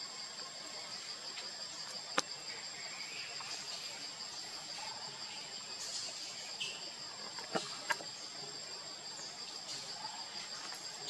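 Steady high-pitched drone of insects in the forest canopy, unbroken throughout, with a few short sharp clicks about two seconds in and twice more near the end.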